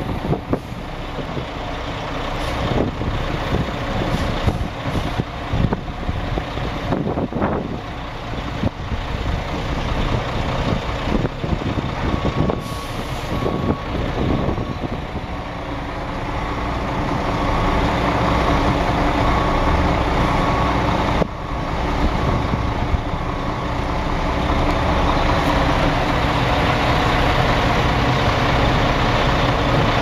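Diesel engines of concrete mixer trucks running, growing louder past the middle, with a backup alarm beeping in a steady series of short beeps for several seconds in the middle.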